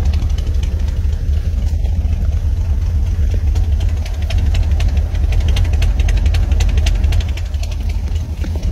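Old pickup truck's engine idling roughly just after a cold start, running without its choke because the choke cable has come off. A low, steady exhaust rumble with a fast ticking over it.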